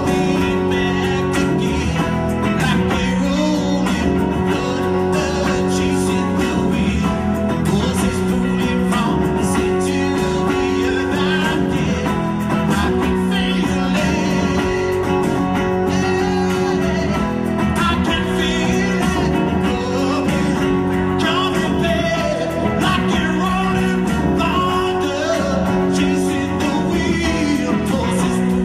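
Live song: a man singing over his own guitar, with no break in the music.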